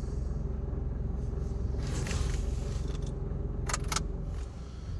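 Low, steady vehicle rumble heard from inside the cabin of a Mitsubishi Triton MN ute. There is a brief hiss about two seconds in and two sharp clicks just before four seconds, and the rumble fades out near the end.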